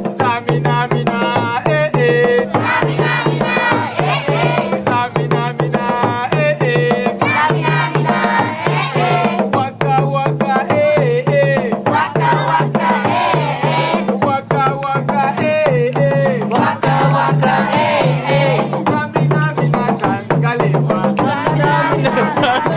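Background music with a steady drum beat and a winding melody over it.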